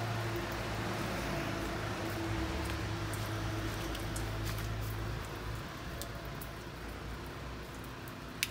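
A steady low motor hum that fades away about five and a half seconds in, with scattered faint clicks.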